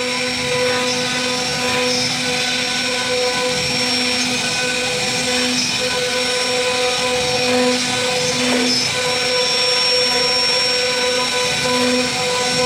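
CNC router spindle running with a steady high whine as its bit carves a wooden relief panel. The whine swells a little now and then as the cutting load changes.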